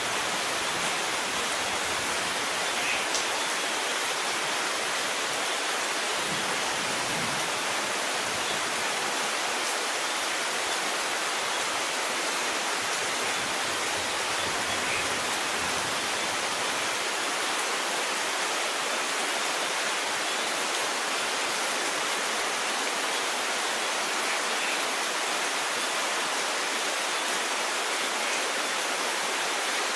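Steady heavy rain falling, an even unbroken hiss with no thunder.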